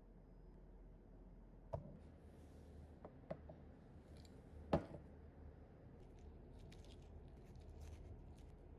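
A few light knocks of a ceramic plate and cutlery on a table, the loudest nearly five seconds in, then faint repeated clicking and scraping of a knife and fork cutting into a whole peeled peach on granola.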